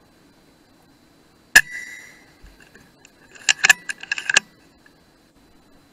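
A single shot from a .177 FX Dreamline Lite PCP air rifle: a sharp crack with a brief metallic ring. About two seconds later comes a quick run of metallic clicks and rattles.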